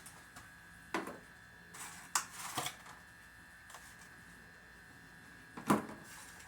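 Eggs being handled and set into the plastic egg divots of a refrigerator door: a handful of short clicks and knocks, the loudest near the end, over a faint steady high tone.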